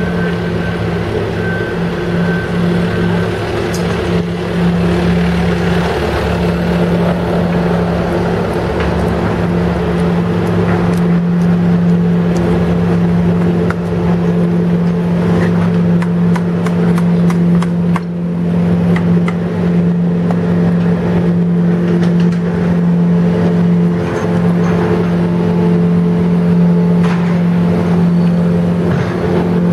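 Diesel construction machinery running with a steady low drone, and a few scattered clanks.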